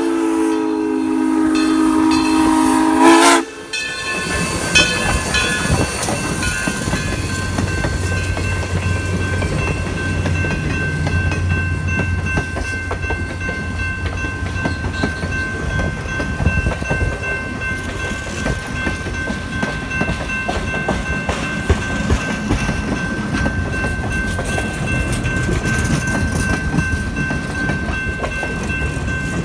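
Steam locomotive #1702, a USATC S160 2-8-0, blows its chime steam whistle for about three seconds, cut off suddenly. Then it passes close by, and its passenger cars rumble and click over the rail joints while the grade-crossing bell rings steadily.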